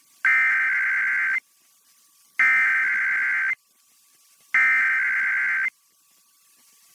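Emergency Alert System SAME header: three bursts of screeching digital data tones, each about a second long and about two seconds apart, announcing the start of an alert.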